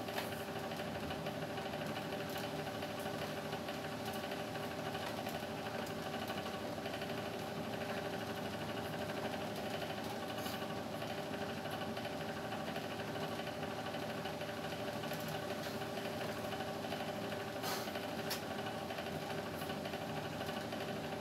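Steady mechanical hum with several held tones from a running wall-mounted split air conditioner, with a few faint clicks.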